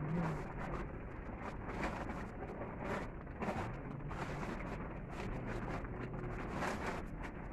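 Plastic tarpaulin rustling and crinkling as it is pulled and tucked by hand, in irregular crackles.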